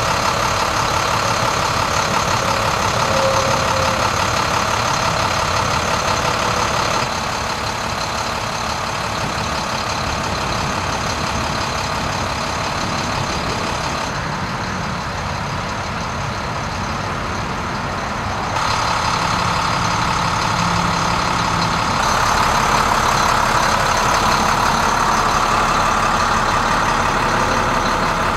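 Diesel engine of an International 4300 medium-duty truck idling steadily. Its tone and loudness change abruptly a few times as the recording cuts between spots.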